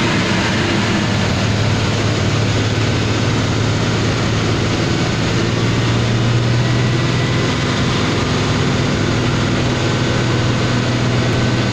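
Truck's diesel engine running steadily under way, heard from inside the cab as a constant low hum, with road and wind noise over it.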